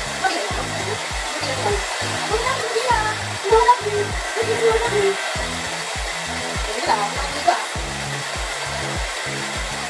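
Handheld hair dryer blowing steadily over a wet Shih Tzu's coat, with background music with a steady beat underneath.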